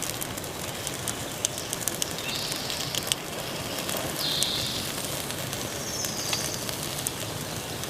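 Kindling fire crackling in a burn barrel, with scattered sharp pops over a steady hiss. A few short bird calls come in about a third of the way in, near the middle and later on.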